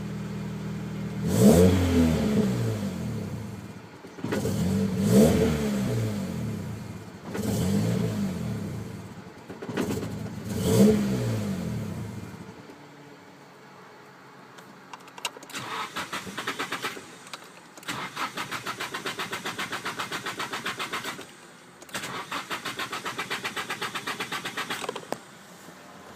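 A car engine running and being revved four times, then cutting out about halfway through. It is followed by three bursts of starter cranking, each a few seconds long, with fast even pulses, and the engine does not catch: a no-start condition.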